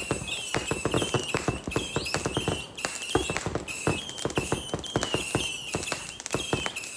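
Fireworks crackling in a rapid stream of sharp pops, with a high whistling tone that hooks up and down and drops out now and then.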